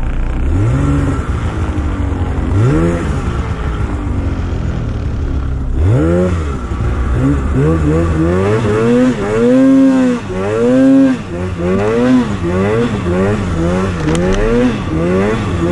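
Snowmobile engine revving up and down over and over as the sled works through deep powder, a few revs in the first part, then about one a second from the middle on.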